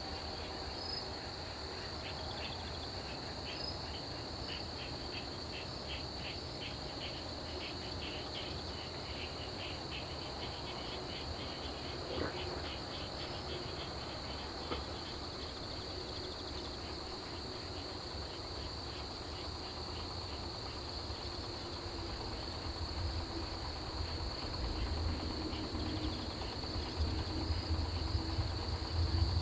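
Autumn grass insects calling: a steady high cricket trill, with another insect chirping in quick pulses through the first half. A low rumble swells near the end.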